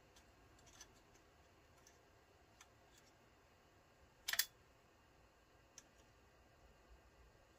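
Faint small clicks of a tool working the steel scope-ring screws as they are driven back in with Loctite, with one louder, short metallic click about four seconds in.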